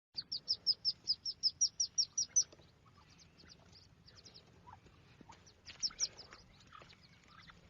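An animal's high-pitched chirps: a fast, even run of about seven a second for two seconds, then scattered fainter chirps, and a short run again about six seconds in.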